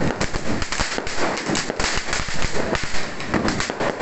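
Ground fountain firework (flowerpot cracker) spraying sparks: a steady hiss packed with rapid, dense crackling pops.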